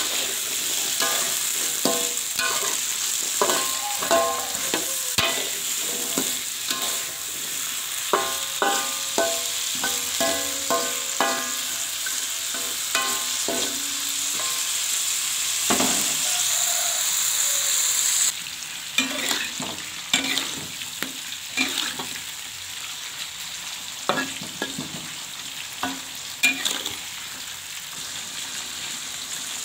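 Food stir-frying in hot oil in a wok: a steady sizzle with frequent clinks and scrapes of a metal spatula against the pan. The sizzle drops a little in loudness partway through.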